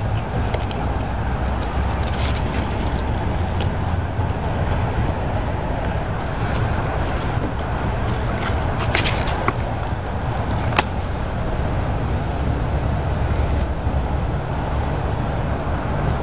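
Steady low rumble and hiss of outdoor background noise, with scattered small clicks throughout.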